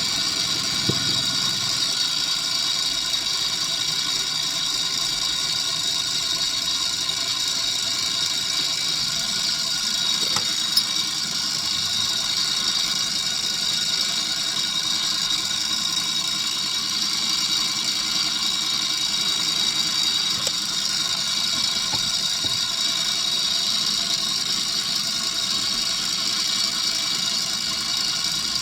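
Milling machine running steadily with an end mill cutting, a constant high-pitched machining whine with several steady tones. A single brief click about eleven seconds in.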